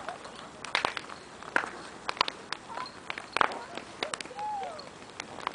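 Ice skate blades scraping and clicking on frozen lake ice, in irregular strokes with a few sharper knocks. There is a brief high voice call at the start and another about four seconds in.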